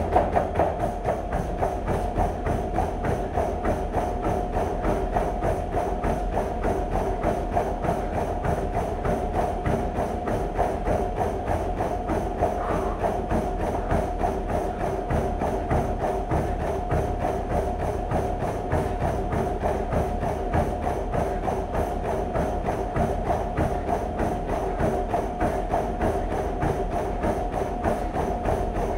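Treadmill running at sprint speed, its motor and belt giving a steady whine, under the fast, even footfalls of a runner sprinting on the belt. A heavy thud right at the start as the runner lands on the moving belt.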